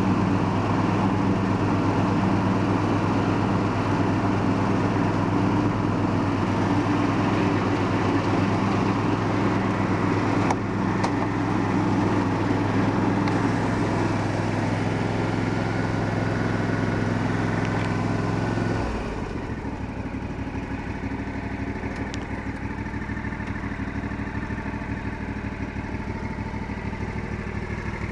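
Cub Cadet CC 1224 KHP lawn tractor's 24 hp twin-cylinder Kawasaki engine running steadily with the mowing deck engaged. About two-thirds of the way through the sound drops suddenly to a quieter, lower running note.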